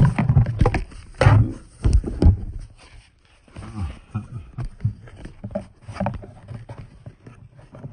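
Cardboard-and-plastic blister packaging of a small flash drive being torn and pried at by hand: an irregular run of rips, rustles and knocks, busiest in the first couple of seconds.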